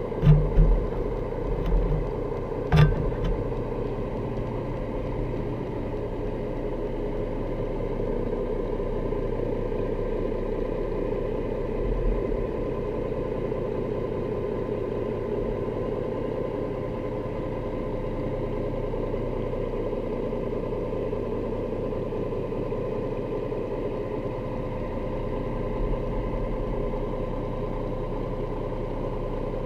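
Steady engine hum from a boat motor, heard underwater through the camera housing. A few dull knocks come in the first three seconds, with softer bumps later on.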